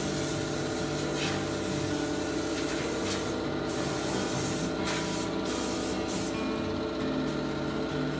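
Background music over a steady hissing, rubbing noise that breaks off briefly a few times and fades out near the end.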